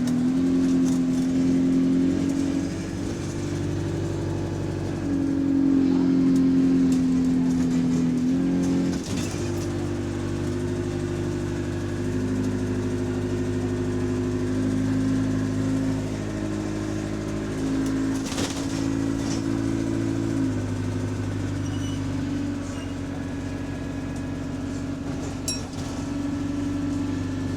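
Diesel bus engine, heard from on board, pulling under throttle and easing off in turn, its note stepping up and down as it accelerates and changes gear. It makes a repetitive ticking noise under throttle.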